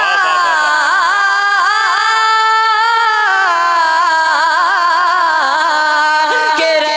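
A young male naat reciter singing into a microphone: a long, drawn-out melismatic passage of held notes with wavering, ornamented turns of pitch.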